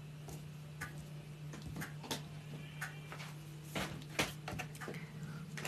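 Irregular light clicks and taps from hands working boilie dough and setting rolled bait balls down on a tray, over a steady low hum.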